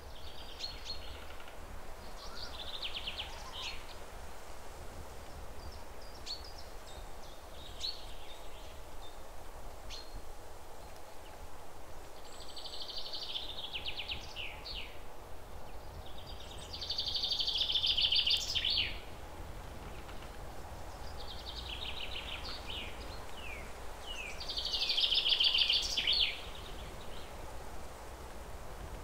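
A songbird singing repeated phrases of fast high trills ending in short downward-slurred notes, several seconds apart, loudest about seventeen and twenty-five seconds in, over a low steady hum.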